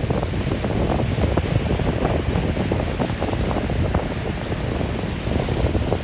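Wind buffeting the microphone in a steady rumble with crackles, over the wash of surf breaking on a beach.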